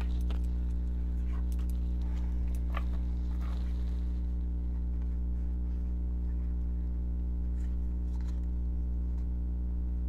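A steady low hum with a buzzing row of overtones throughout, and over it a few soft clicks and rustles of oracle cards being handled, mostly in the first few seconds and again briefly near the end.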